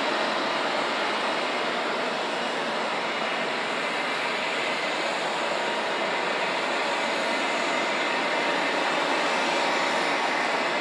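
Steady jet engine noise: an even rushing hiss with faint, steady high whining tones, not rising or falling.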